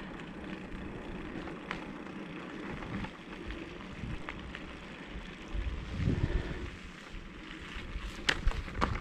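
Wind buffeting the microphone over the rolling tyre noise of a mountain bike on asphalt, with a louder low rumble about six seconds in. Near the end come a few sharp crackles as the tyres reach icy, crusted snow.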